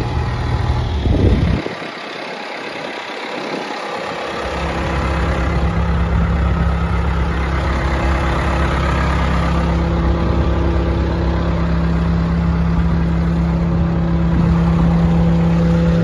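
John Deere 650G crawler dozer's diesel engine idling steadily. The sound drops and thins for a couple of seconds near the start, then runs loud and even.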